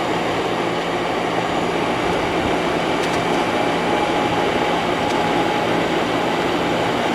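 Window air conditioner running from the condenser side: a steady rush of fan air over a low compressor hum, with a faint steady tone coming in about halfway through.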